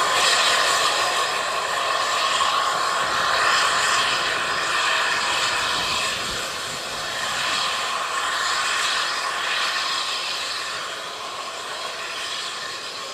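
Narrow-gauge steam train running away along the track: a steady rushing noise that slowly fades as the train recedes.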